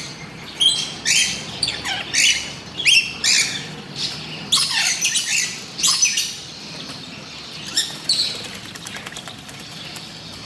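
Lovebirds giving rapid, shrill chirps and squawks, many short calls close together, thinning out after about six seconds to only a few calls near the end.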